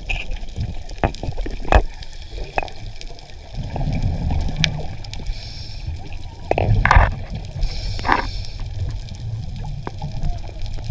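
Muffled underwater sound from a diver's camera: low rumbling water noise with scattered sharp knocks and a few short louder bursts, the loudest about seven seconds in.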